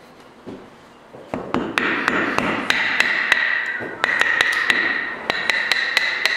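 Knife being tapped into the end grain of a green honeysuckle stick to split it: a quick run of sharp taps, about three or four a second, starting about a second in, with a high ringing tone held under them.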